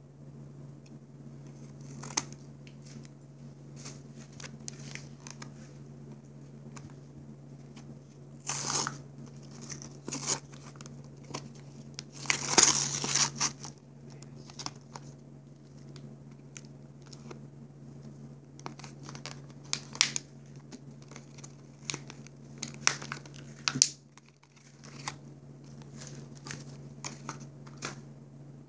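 Plastic blister packaging and card backing being torn and crinkled by hand in irregular rustles and crackles, loudest about a third and halfway through, as the nail polishes and lip glosses are freed from the pack.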